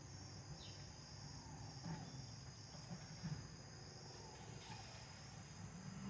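Faint steady chorus of crickets trilling, with a few faint short falling notes now and then.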